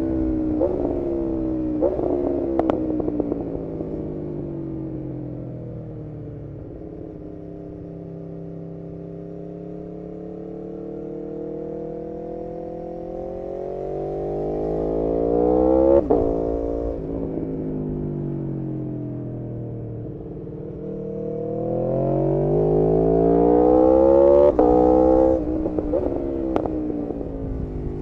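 Aprilia RSV4 Factory's V4 engine under way: its note falls as it slows, then the revs climb twice to a high-pitched peak, about halfway and near the end, and drop away sharply. A few sharp crackles come as the revs fall.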